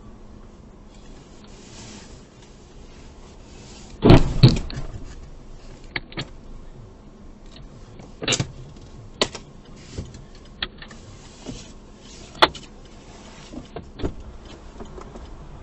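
Heavy double thud about four seconds in, picked up by a car's dashcam, followed by a string of shorter knocks and clicks over a low steady background.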